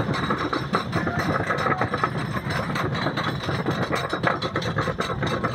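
Philadelphia Toboggan Coasters wooden roller coaster train being hauled up the chain lift hill: the lift chain runs with a steady rumble while the anti-rollback dogs clack in a fast, uneven stream of clicks.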